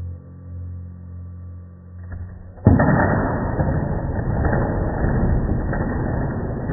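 A low steady drone, then about two and a half seconds in a sudden loud crash that carries on as a dense rattling clatter: toy demolition-set building pieces blown apart by their spring blasters and collapsing, heard slowed down in slow motion.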